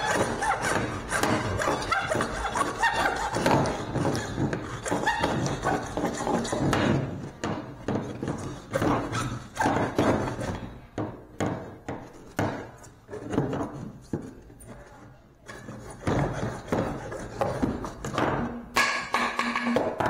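Hand hacksaw cutting through PVC pipe with rapid back-and-forth strokes. The strokes come thick at first and grow sparser through the middle, with a few thuds from the pipe being handled.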